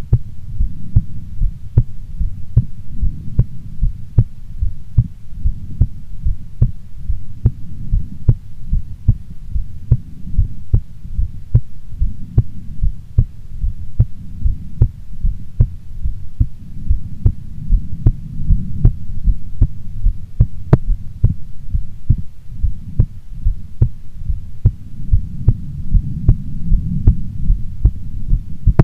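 A woman's heartbeat: a steady rhythm of low thumps over a constant low rumble.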